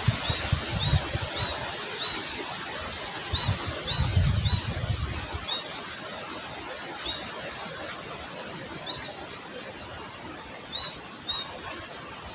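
Wind gusting over the microphone as a broad rushing noise with heavy rumbling buffets, strongest in the first second and again around four to five seconds in. A bird repeats a short high chirp about once a second through it.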